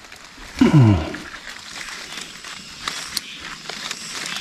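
Leaves and stems of wild raspberry bushes rustling and crackling as berries are picked off by hand. Just under a second in, a short voice-like sound falls steeply in pitch and is the loudest thing.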